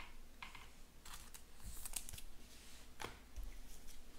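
Trading cards handled by hand: a few light clicks and a brief rustle of cards sliding against each other, with a sharper tap about three seconds in.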